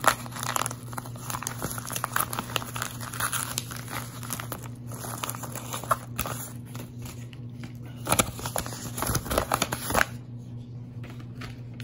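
A yellow padded paper mailer being pulled open by hand, crinkling and crackling. Near the end come louder bursts of paper rustling as a white envelope is drawn out and handled.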